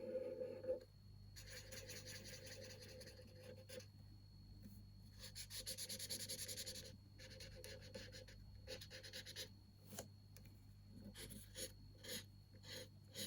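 A colouring pen scribbling on a colouring-book page: two long runs of quick back-and-forth strokes, then shorter separate strokes toward the end.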